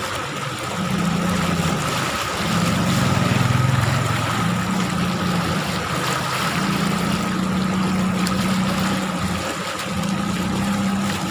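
An engine running steadily, its low note stepping up and down a little, over a continuous rushing hiss.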